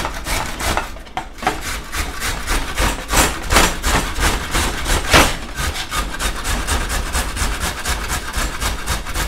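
A carrot being grated on a metal box grater, in quick, regular rasping strokes of about five a second.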